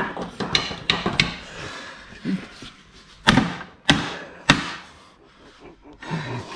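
Hammer blows on a bent metal luggage rack to straighten it. A few lighter knocks come in the first second or so, then three hard strikes about half a second apart, around three to four and a half seconds in.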